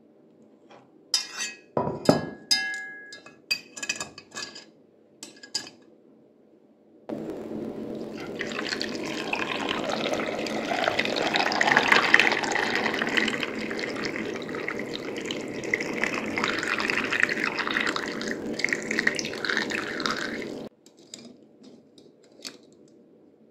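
A few ringing metallic clinks and knocks as a wire-mesh strainer basket is set into a metal pot, then water pours steadily into the pot over peeled potato chunks for about fourteen seconds and cuts off abruptly.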